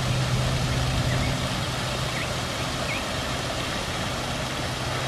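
Steady outdoor background noise with a low, even hum throughout, and a few faint short bird chirps about one to three seconds in.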